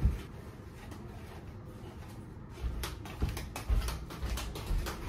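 Household handling noises: a dull knock as something is set down at the start, a few sharp clicks, then footsteps on the floor, dull thuds about two a second, from a little past halfway.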